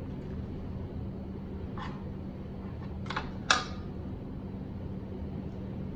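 Kitchen scissors clicking a few times, the loudest click about three and a half seconds in, over a steady low hum.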